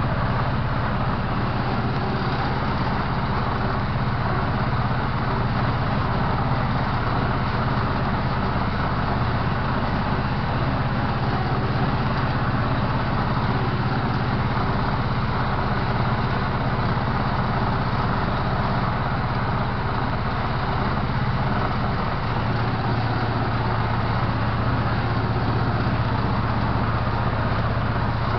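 Ursus C-330 tractor's two-cylinder diesel engine running steadily under load, driving a rotary mower, heard from inside the cab. Its note drops slightly about three-quarters of the way through.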